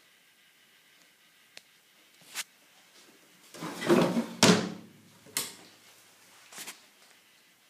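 Drawers and cupboard doors of a 1970 Hygena kitchen being opened and shut: a few light knocks, then a drawer sliding out and pushed shut with the loudest bang about four and a half seconds in, followed by two more knocks.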